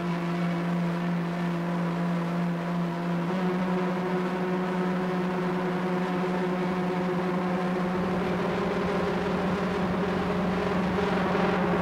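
Electronic drone from a live sound installation: several tones held steadily together, the lowest shifting slightly in pitch about three seconds in. A hissing noise slowly swells toward the end.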